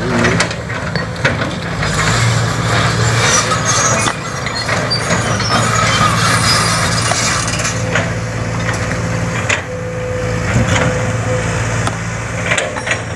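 Sumitomo SH210 hydraulic excavator's diesel engine running steadily under load, with sharp knocks and crackling of rock against the bucket and rock on rock several times as it handles large stones.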